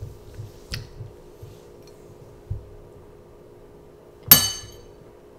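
A metal spoon clinks sharply against the bowl about four seconds in, with a brief ringing after the hit. A lighter tap comes a little under a second in.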